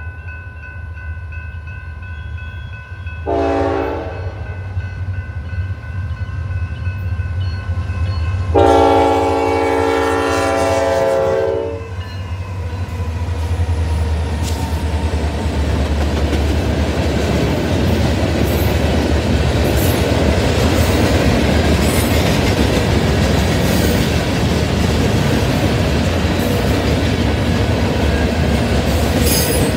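Freight train's diesel locomotive approaching with a steady low engine rumble. Its air horn sounds a short blast about three seconds in and a long blast from about nine to twelve seconds. The locomotive then passes close by and the freight cars roll through, their wheels clacking over the rail joints.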